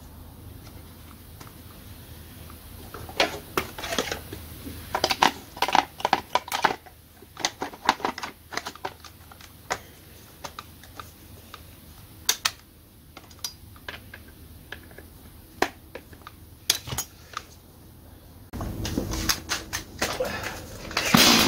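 Irregular plastic clicks and knocks as the top cover of a STIHL MS180C chainsaw is fitted and latched back on after carburetor work, then handling noise as the saw is lifted. Right at the end the saw's engine starts.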